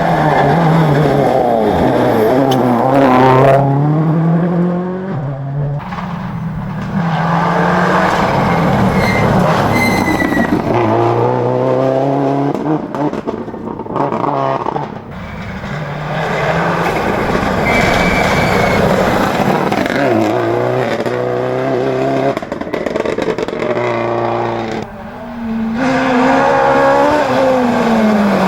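Rally car engines accelerating hard, revving up through the gears in repeated rising sweeps that drop back at each gear change, with a few brief tyre squeals.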